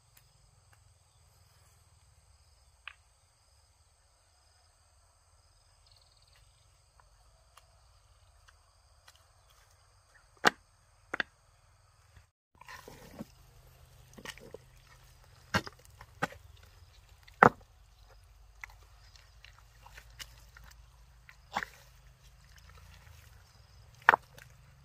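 Stones clacking against each other as they are handled and set down in wet mud: about ten sharp, separate knocks, most of them in the second half. A faint steady high whine runs under the first half.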